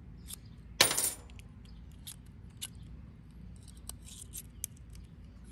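Small metal clicks and clinks of a utility knife having its razor blade changed, with one sharp metallic clink about a second in and another near the end.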